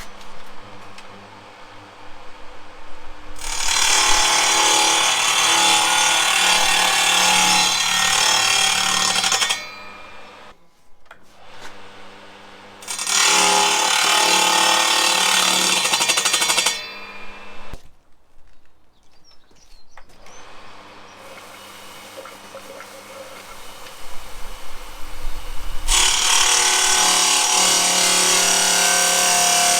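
Electric saw cutting the stone hearth piece: three loud cutting stretches of several seconds each, with the motor running more quietly between them and briefly stopping about eighteen seconds in.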